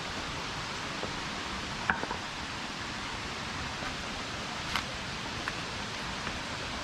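Steady rush of a flowing stream, with a few scattered sharp clicks over it, the loudest about two seconds in.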